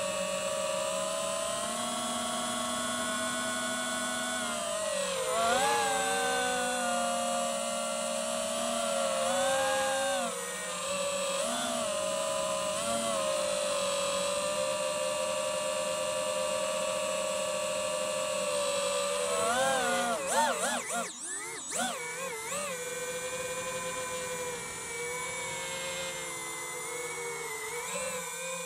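DJI FPV drone's electric motors and propellers whining in flight, the pitch rising and falling with throttle changes. About twenty seconds in the pitch swings rapidly up and down several times and the level briefly dips.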